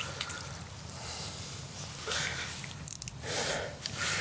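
A person breathing and sniffing close to the microphone: several short, noisy breaths, with a few faint clicks just before the three-second mark.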